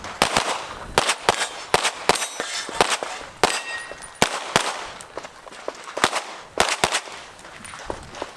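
Handgun shots fired rapidly from an IPSC Open-division pistol, mostly in quick pairs of about a dozen shots, with a short pause about five seconds in.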